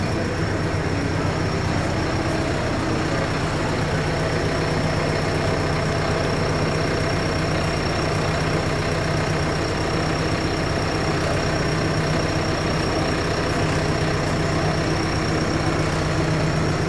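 Tractor engine idling, a steady unchanging hum with a thin high whine above it.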